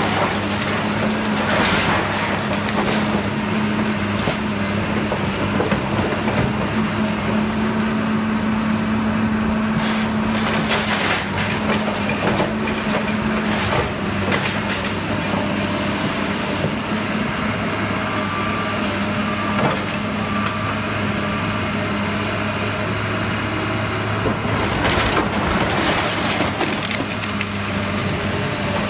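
Kobelco hydraulic excavator's diesel engine running steadily while its bucket tears into a building, with loud crunching and crashing of breaking debris several times.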